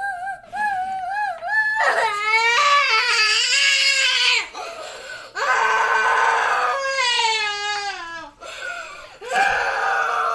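A young girl crying hard: several long, high-pitched wails with a wavering pitch, separated by short breaks for breath.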